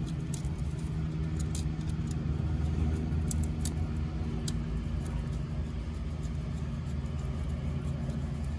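An engine running steadily at idle, with a few faint clicks and taps.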